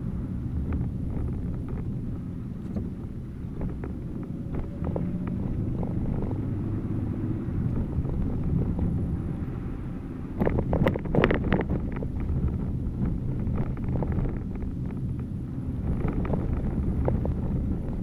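A car driving slowly on slushy, snow-covered streets, heard from inside the cabin: a steady low rumble of engine and tyres with scattered clicks and crunches, and a louder cluster of knocks about ten seconds in.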